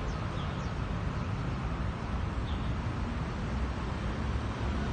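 Steady low outdoor rumble of background noise, with a few faint short high chirps near the start and about halfway through.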